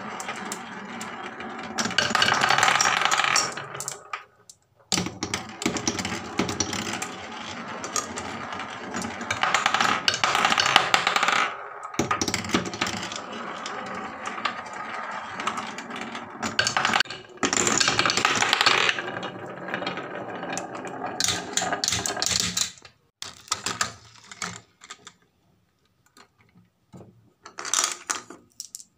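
Marbles rolling round a plywood spiral marble-run track: a steady rolling rumble that swells in waves as several marbles run at once. Near the end it breaks up into scattered clicks and knocks with short quiet gaps.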